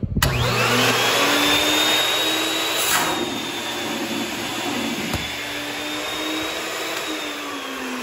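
A 1987 Filtex TS-300-L central vacuum power unit with two motors switching on. The motors start suddenly and spin up with a rising whine, then settle into a steady rush of air under a high motor whine.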